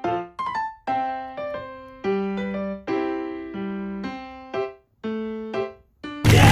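Piano-style keyboard music: a tune of separate notes and chords, each dying away, with short gaps between phrases. Just before the end a sudden loud noisy sound cuts in.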